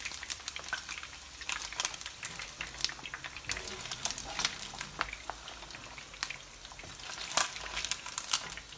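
Chicken pieces frying in hot oil: a steady sizzle with frequent sharp crackles and pops.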